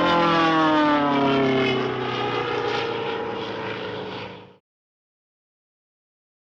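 Cartoon sound effect: an engine-like tone with several pitches that glides slowly downward in pitch and fades, cutting off about four and a half seconds in, followed by silence.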